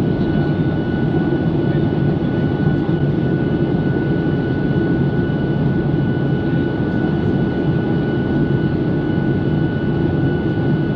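Steady cabin noise of an airliner in flight: a dense, even drone of jet engines and airflow over the fuselage, with a faint steady high tone running above it.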